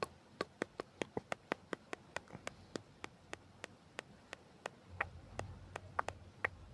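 Rain dripping and tapping: irregular sharp drops, several a second, over a faint hiss. A faint low rumble comes in about five seconds in.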